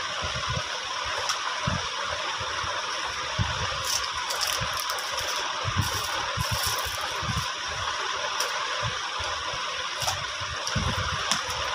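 Small plastic items being handled and set down, giving scattered light clicks and soft knocks over a steady hiss.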